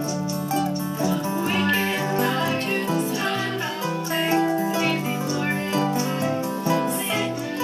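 Acoustic guitars strumming a country-bluegrass tune, steady and full throughout.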